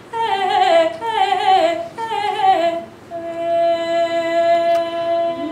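A woman singing solo with no accompaniment: three short falling phrases with vibrato, then a long held note from about three seconds in.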